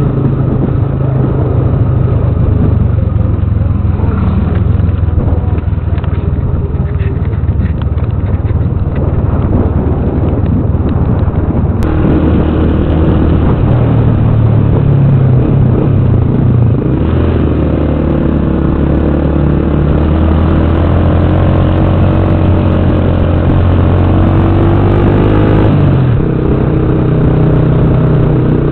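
Motorcycle engine running continuously while riding along a rough road. The engine note steps up and down several times as the speed changes.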